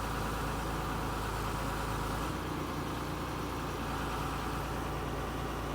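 Diesel engine of a Tata Hitachi 200 excavator running steadily, its note shifting slightly a little over two seconds in.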